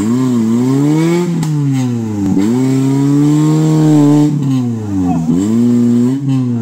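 Maruti Suzuki Gypsy 4x4's engine revving hard under load as it works to climb out of a muddy rut. The pitch rises and falls in several pulls, held highest for about a second midway and dropping away a few times near the end.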